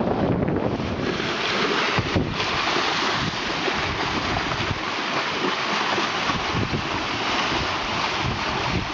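Sea water rushing and splashing along a sailing catamaran's hulls under way at speed, a steady hissing rush, with wind buffeting the microphone, heaviest in the first second.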